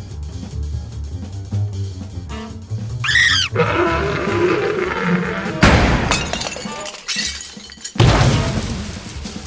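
Music playing under cartoon sound effects: a quick rising-then-falling whistle-like glide about three seconds in, then two loud crashes with a breaking, shattering sound, one about halfway and one near the end, each dying away.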